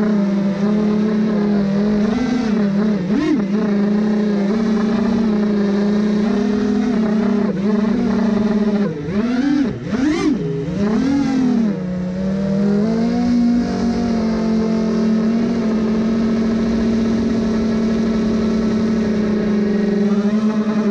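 Five-inch FPV quadcopter (Diatone Roma F5 with Mamba Toka 2207.5 1700KV motors on a 6S battery) in flight, its motors running at a steady whine. The pitch swoops down and back up with quick throttle changes about three seconds in and again around ten seconds in.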